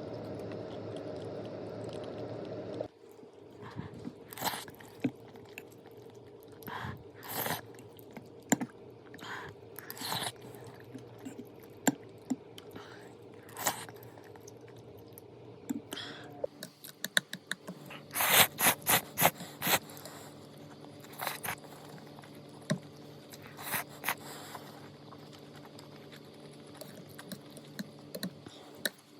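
A person eating: crisp bites and chewing in irregular crunches, with a quick run of them about two-thirds of the way through. A steady background hum stops abruptly about three seconds in.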